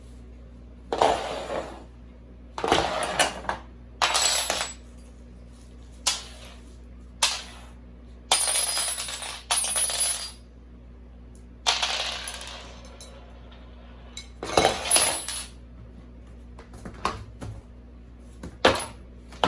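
Small metal parts and tools clinking and clattering as they are handled and set down. The sound comes in about a dozen short, separate bursts over a steady low hum.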